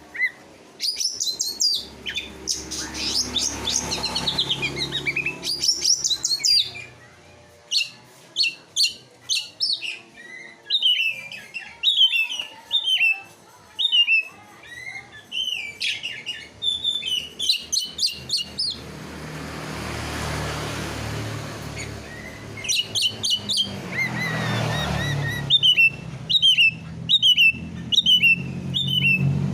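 Songbird song for training: bursts of rapid, sharp chirps and quick down-slurred whistled notes, repeated over and over, with a low hum underneath in the second half.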